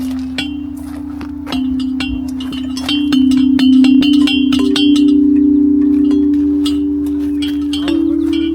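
Outdoor metal musical chimes struck by hand several times, each new strike sounding a different pitch and the notes ringing on and overlapping.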